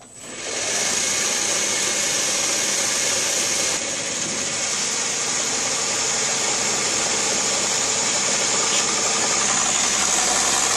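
1946 South Bend Heavy 10 toolroom lathe starting up, then running steadily loud while its carbide tool takes a heavy cut across the hex-head corners of a grade 5 steel bolt held in a collet. The drive belt holds without slipping under the cut.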